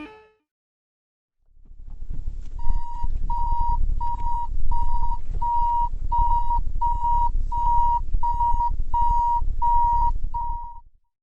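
Japanese railroad level-crossing warning bell ringing in even, single-pitched beeps, about one and a half a second, over a low rumble. The rumble starts first, and both fade out near the end.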